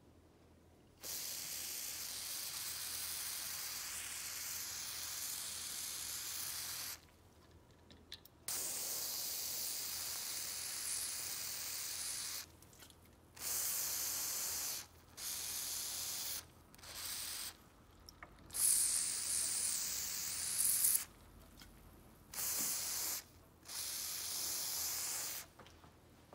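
Aerosol spray lubricant (WD-40) hissing out of a thin extension straw onto a rusty adjustable wrench's adjuster, in eight separate bursts: a long first one about six seconds, then shorter squirts of one to three seconds with short pauses between.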